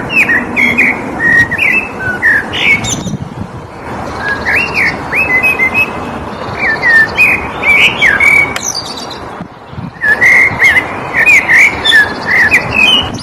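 A songbird singing a quick series of short chirps and slurred whistled notes, in three stretches separated by brief lulls, over a steady background hiss.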